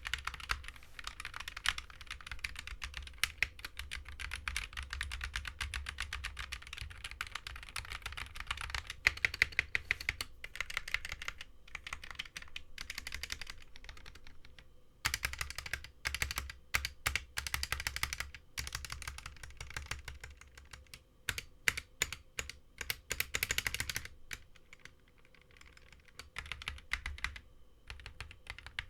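Typing on an Akko 3061S HE magnetic keyboard with factory-lubed Akko Cream Yellow Pro linear switches. It comes in fast runs of keystrokes with short pauses. The plastic case has no sound dampening, which the owner says gives a slightly rattly sound.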